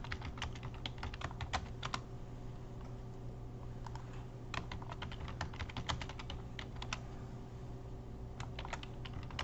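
Typing on a computer keyboard: runs of quick key clicks that thin out about two seconds in, pick up again around four and a half seconds, and pause for over a second near the end, over a steady low hum.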